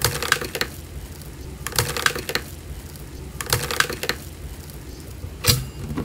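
Slime being squeezed and pressed by hand, giving three short bursts of crackling pops about a second and a half apart and one sharp pop near the end.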